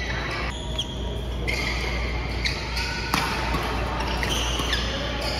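Badminton court sounds: several short squeaks of court shoes on the mat and one sharp racket hit on a shuttlecock about three seconds in, over the steady low hum of the hall.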